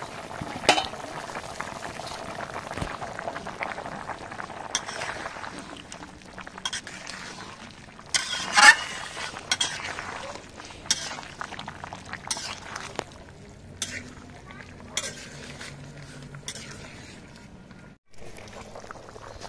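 Vegetable curry bubbling in a large aluminium pan, with a steady simmering hiss. A metal spatula stirs it, knocking and scraping against the pan with a series of sharp clinks. One clatter about eight seconds in is louder than the rest.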